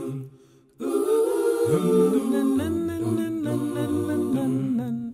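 Wordless a cappella vocal music: voices humming sustained chords. It breaks off for about half a second just after the start, then resumes with held chords that shift in pitch.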